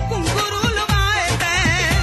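A recorded dance song with a driving drum beat, playing loud, with a wavering high melody line from about halfway through.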